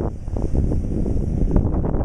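Caterpillar excavator's diesel engine running steadily, its low rumble mixed with wind buffeting the microphone.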